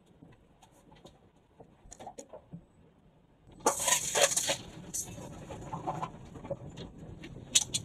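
Tsunami flood water rushing through a street and carrying wreckage, starting suddenly about three and a half seconds in as a loud rush with many knocks and cracks of timber and debris. Before it there are only faint clicks and short chirps.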